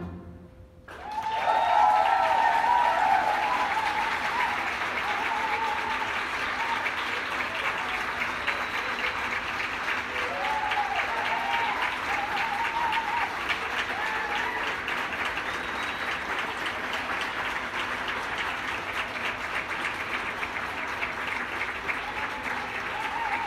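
Music ends at the very start, then a large crowd breaks into applause about a second and a half in, loudest at first and then steady, with voices shouting over the clapping a few times.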